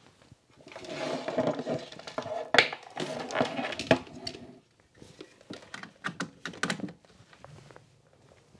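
Off-camera handling of cables and a plug: rustling with several sharp clicks and knocks through the first half, then lighter scattered clicks around six seconds in.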